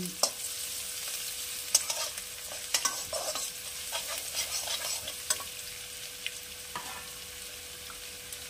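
Chopped garlic and ginger sizzling in hot oil in a metal kadai, stirred with a metal spatula that scrapes and clicks against the pan. The spatula strokes thin out after about five seconds, leaving mostly the steady sizzle.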